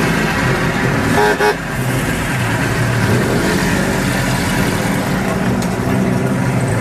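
Vintage Lea-Francis sports car's four-cylinder engine running steadily at low revs as the car moves off slowly, with a brief toot-like tone about a second and a half in.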